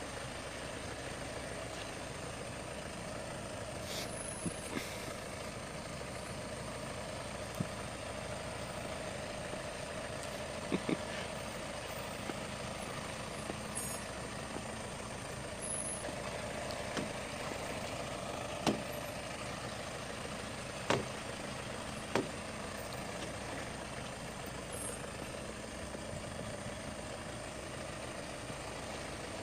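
A heavy vehicle's engine running steadily, with a handful of sharp knocks or clunks scattered through it.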